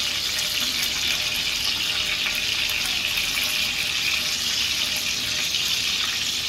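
Cubes of pork belly sizzling steadily in their own rendered fat in a stainless-steel electric skillet, cooking without added oil.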